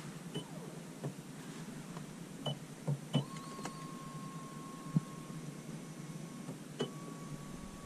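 Touch buttons on a car's rear armrest control panel giving short high beeps, four in all, with a few soft clicks. After the third beep an electric motor whines steadily for about three seconds, stops, and starts again at a slightly higher pitch after the last beep.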